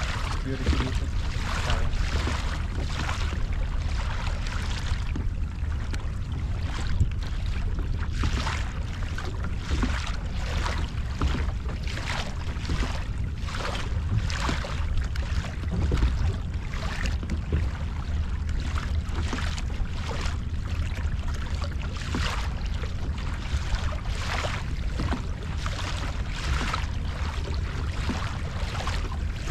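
Water slapping and splashing against a moving fishing kayak's hull in an uneven rhythm, a little more than once a second, under a steady low rumble of wind on the microphone.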